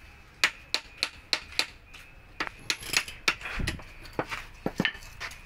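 Sharp metal clinks and taps, about a dozen at uneven intervals, as hand tools and parts knock against a truck differential carrier during reassembly, with one duller low knock a little past halfway.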